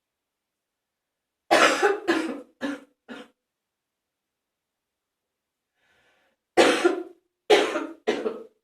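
Phlegmy morning cough: a run of four coughs, then after a pause of about three seconds a run of three more.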